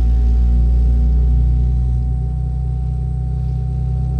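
Airliner's jet engines at idle, heard from inside the cabin as the plane starts to taxi: a steady low drone with a thin, constant whine above it.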